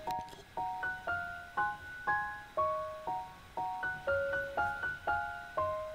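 Background music: a light melody of struck, bell-like keyboard notes, about two a second, each ringing and fading.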